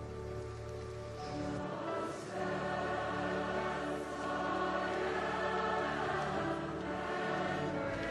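Large choir singing a slow hymn in sustained chords, growing louder about two seconds in.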